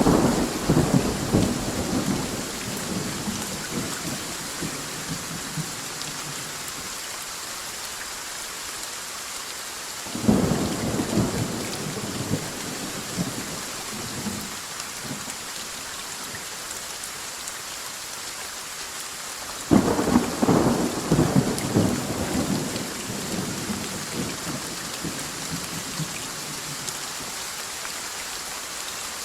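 Thunderstorm: steady heavy rain hissing throughout, with thunder rumbling three times. A peal dies away over the first few seconds, then a new one breaks suddenly about ten seconds in and another about twenty seconds in, each rolling on for several seconds.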